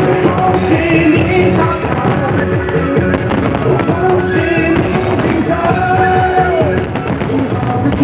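Music with a sustained melody, over a steady run of fireworks bangs and crackles.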